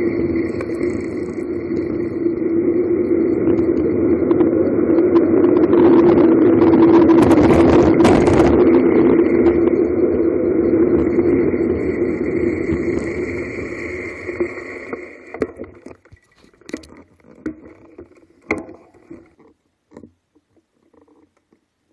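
Wind rushing over the camera's microphone during a fast downhill bicycle descent, with a steady hum under it, loudest a few seconds in. It fades and cuts off about fifteen seconds in as the bike slows, leaving a few scattered light clicks.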